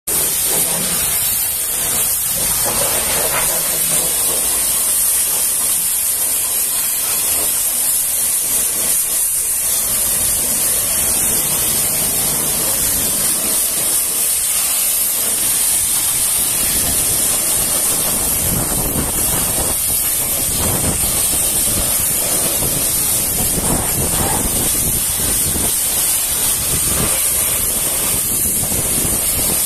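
Pressure washer's high-pressure jet spraying onto a truck's painted steel side box and tyre: a steady, loud hiss of water spray.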